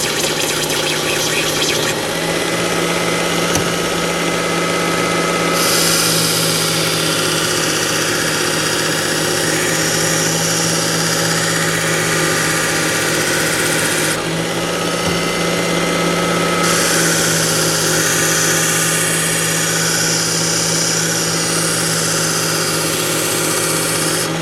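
Work Sharp Ken Onion Edition knife sharpener's electric motor running steadily with the leather stropping belt fitted, a knife blade being stropped on the moving belt. Over the steady hum, a hiss grows louder and falls back several times.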